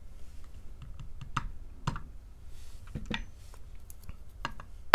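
Small metal clicks and taps as tweezers and fingers work a disassembled lock's core and pins. The clicks are irregular, with the sharpest one near the end.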